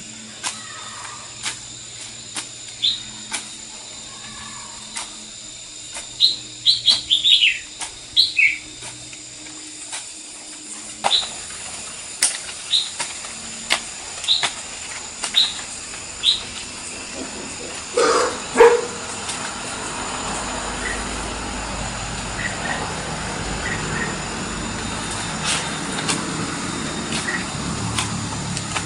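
Long-handled garden hoe chopping into loose, freshly dug soil, a dull strike about every second. Birds chirp with short high descending notes between the strokes, and a short animal call, louder than the rest, comes about two-thirds of the way through.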